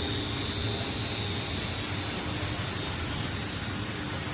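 Snack pellet production line machinery running: a steady mechanical drone with a constant high-pitched whine over a low hum.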